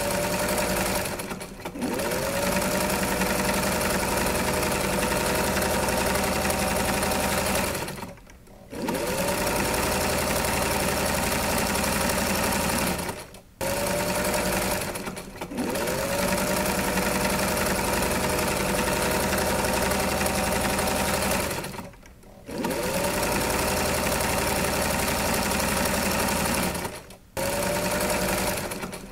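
Electric sewing machine running in long stretches, stopping briefly six times. Each time it starts again its whine rises in pitch as the motor comes up to speed, then settles.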